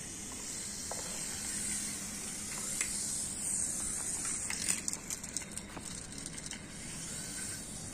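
Small toy helicopter's electric motor and rotors running, a steady high hiss over a low buzz. A few sharp clicks come about halfway through, as it comes down on the rooftop.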